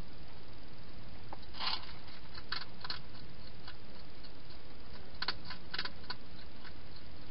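Hedgehog eating dry food from a bowl: short crisp crunching clicks in two bursts, about two seconds in and again about five seconds in, over a steady hiss.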